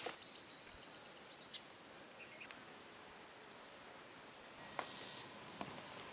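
Faint outdoor ambience: a steady hiss with a few short, high chirps scattered through it, and a brief tick with a short high buzz about five seconds in.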